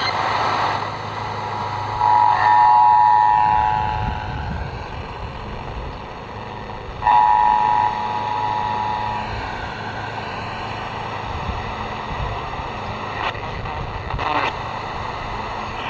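A small portable TV's speaker hisses with static and faint warbling whistles while it is tuned to a VHF channel and picks up a stray radio signal. Twice, for about two seconds each, a steady chord of tones comes through it. Wind rumbles on the microphone underneath.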